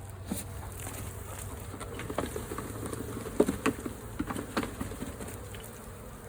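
Honey bee swarm buzzing steadily, with a run of light clicks and knocks from wooden hive frames being handled, thickest in the middle.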